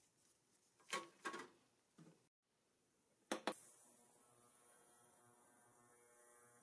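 Stainless steel lid set down on an ultrasonic cleaner's tank with a few metallic knocks, then two clicks about three and a half seconds in as the CO-Z digital ultrasonic cleaner is switched on. It then runs with a steady high hiss and a faint hum.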